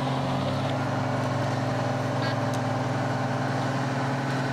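Steady low drone of an idling engine, with a few faint pops from the burning car about halfway through.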